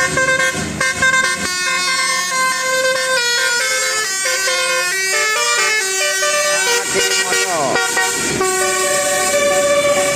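Bus telolet basuri horn, a multi-note musical air horn, playing a melody of short stepping notes, with a quick sliding sweep about seven seconds in.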